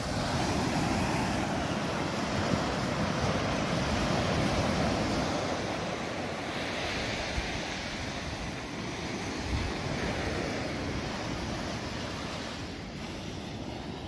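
Ocean surf breaking and washing up a sand beach: a steady rushing that swells over the first few seconds and eases off toward the end.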